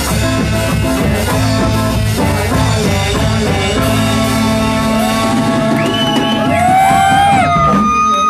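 A band playing live, with guitar and drums. From about halfway through, long held notes slide up and down over the sound.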